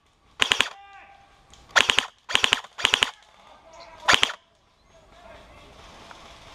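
Airsoft electric rifle, an SRC AKS-74U, firing close by in five short full-auto bursts of about three or four shots each. The bursts come over about four seconds and then stop.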